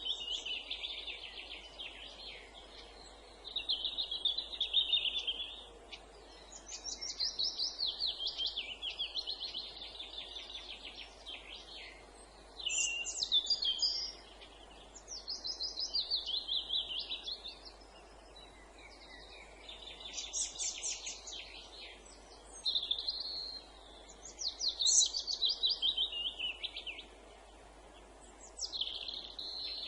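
A songbird singing in repeated phrases of rapid notes, each phrase one to three seconds long, several sweeping downward in pitch, with short pauses between them, over a faint steady background hiss.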